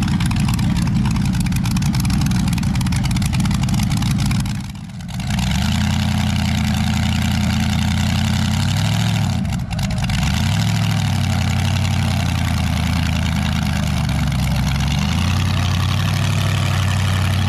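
Supercharged small-block Chevy V8 in an S-10 mini truck running loud at low revs. The sound dips briefly about five seconds in, then runs steadier with a few short rises in pitch.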